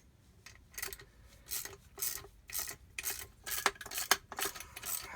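Socket ratchet run back and forth on the bolts of a jet-ski pump's rear cone, unscrewing them. It makes a rasping metal burst about twice a second, with short pauses between strokes.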